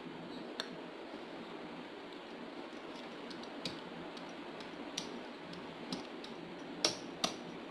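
Small plastic toy figures being handled and set down on a tabletop, giving a scattering of short sharp clicks and taps over a faint steady hiss; the two loudest clicks come close together near the end.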